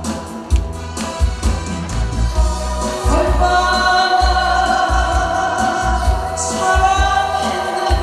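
A woman sings a Korean trot song into a microphone over a backing track with a steady drum beat. The first few seconds are accompaniment alone, and her voice comes in about three seconds in.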